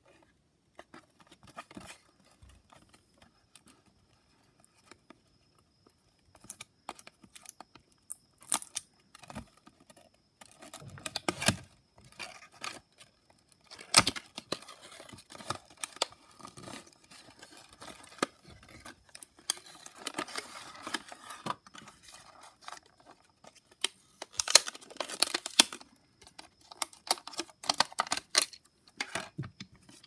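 A cardboard box and its plastic insert handled and opened by hand: papery rustling, scraping and small clicks and taps in irregular bursts, louder a few times.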